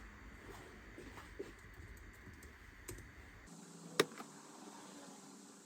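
Light scattered clicks and taps from handling a laptop, with one sharper click about four seconds in. A low background hum cuts out about three and a half seconds in.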